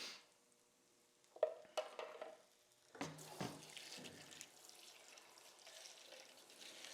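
Pancake batter frying in a skillet: a faint, steady sizzle that sets in about three seconds in, after a few brief kitchen sounds.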